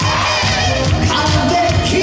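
Live trot song sung through a loud PA over an amplified backing track with a steady bass beat.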